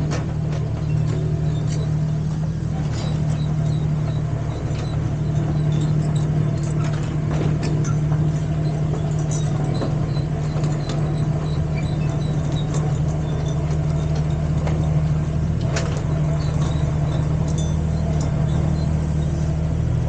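Mini excavator engine running steadily, with scattered light clicks and clanks.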